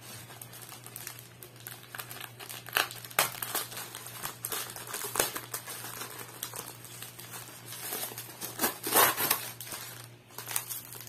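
Clear plastic packaging bags crinkling as they are handled and unwrapped, in irregular bursts with the loudest rustling near the end. The bags hold the parts of a 3D wall clock, including its movement.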